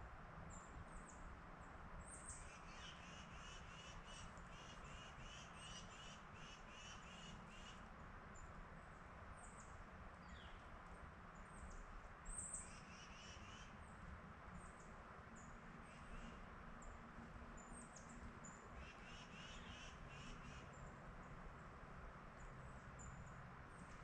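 Faint bird calls: three runs of quickly repeated high notes, the first about two seconds in and lasting several seconds, with scattered thin, high chips in between. A low, steady background hum lies underneath.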